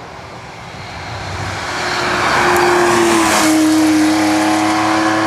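Classic Porsche 911 rally car's air-cooled flat-six passing at speed: a rush of engine and road noise swells as it approaches. A strong engine note comes in about halfway through, drops in pitch as the car goes by, then holds steady.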